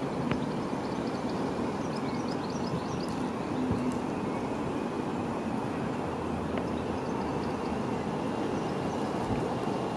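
Steady outdoor background rumble with a faint low hum, and a short run of faint high chirps about two to three seconds in.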